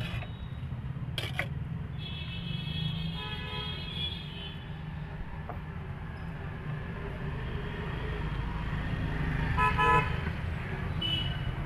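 Street traffic running with a steady low rumble, and vehicle horns sounding over it: a longer horn from about two seconds in and a short, louder toot near the end. A single sharp knock about a second in.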